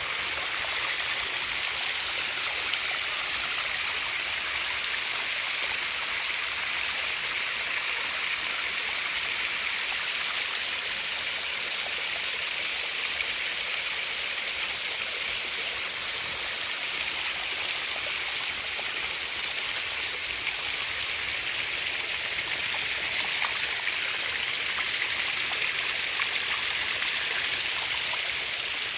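Small waterfalls splashing and running steadily: an even, hissing rush of water.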